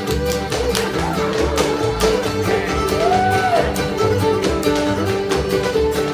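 Old-time string band playing a lively fiddle tune: fiddle over strummed guitar and a low bass line. A steady beat of sharp strokes runs under it.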